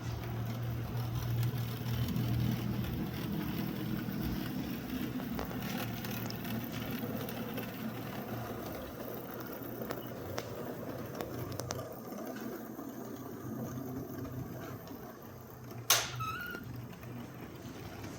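Model train running on its track: a steady hum and rumble of the locomotive and wheels, louder in the first few seconds and then easing, with one sharp click about sixteen seconds in.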